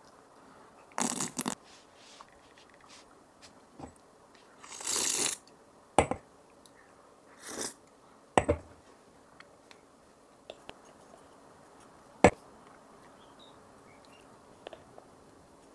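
Scattered handling noises: two short rustling bursts and several sharp clicks or knocks, with quiet between them.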